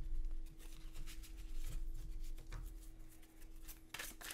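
Quiet handling of a tarot card deck: soft rubbing and faint taps of the cards, with a few sharper card clicks about four seconds in, over a steady faint hum.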